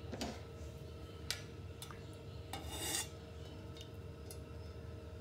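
A metal spoon clinking a few times and scraping briefly against a non-stick kadhai as cooking oil is spooned in, over a faint steady hum.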